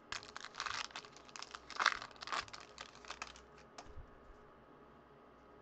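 Foil trading-card pack wrapper crinkling as it is opened and the cards pulled out. It makes a run of sharp crackles that stops about three and a half seconds in.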